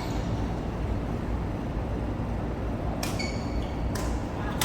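Badminton rackets hitting an Aeroplane goose-feather shuttlecock: two sharp cracks about a second apart near the end, each followed by short high squeaks, over a steady low hum of a sports hall.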